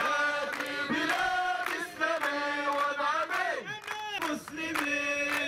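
Crowd of protesters chanting slogans in Arabic in unison, with hand clapping keeping the beat.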